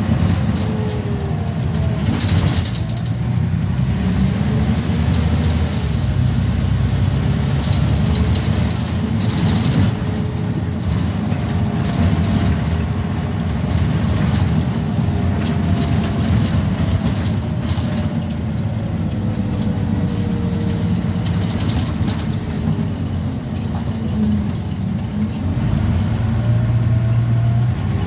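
Scania N94UB single-deck bus driving, heard from inside the saloon: the five-cylinder diesel engine and drivetrain make a steady low drone, with a whine that rises and falls as the bus speeds up and slows, and occasional rattles.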